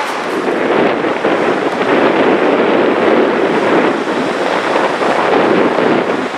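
Gullfoss waterfall: the steady, loud rush of a large volume of falling water.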